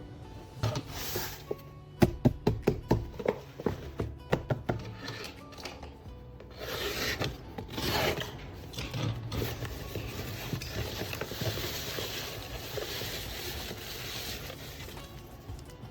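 Paper being handled over background music: a quick run of light taps about two seconds in, then paper rustling and rubbing for most of the rest.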